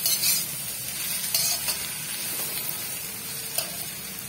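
Chopped vegetables sizzling as they are stir-fried in an iron kadhai, a metal slotted spatula scraping and tossing them. The spatula strokes come out louder right at the start, at about a second and a half, and shortly before the end.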